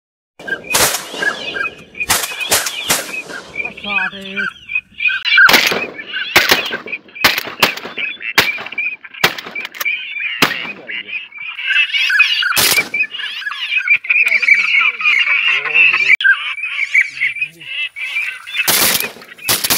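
Repeated shotgun shots, more than a dozen sharp reports in quick strings, fired at flying waterfowl. Under them a flock of waterfowl calls steadily, the calling swelling about two-thirds of the way through.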